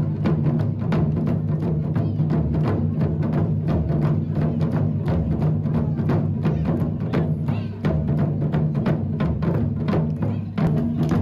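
Japanese taiko (wadaiko) ensemble drumming: many drums, including a large ōdaiko, struck in a fast, driving rhythm, with a brief break about eight seconds in.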